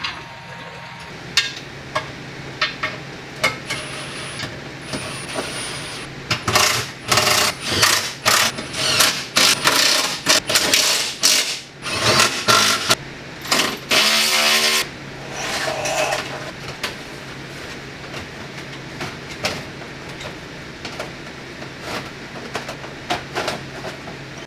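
Cordless impact tool running in a string of short bursts, driving bolts up under the car, with a brief steady buzz of the tool spinning near the middle. Scattered clicks and clanks of tools and metal parts come before and after.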